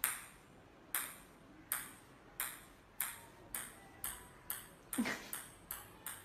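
A plastic ping-pong ball bouncing on a hard tiled floor: about a dozen sharp ticks, coming faster and faster as the ball settles.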